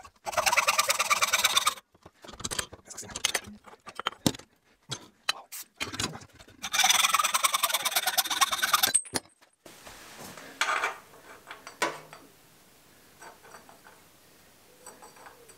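Hand hacksaw cutting through a steel exhaust pipe elbow clamped in a vise: two long spells of fast sawing strokes, with shorter strokes and scrapes between them. Near the end, quieter clicks and knocks of the metal pipe being handled and offered up to the engine.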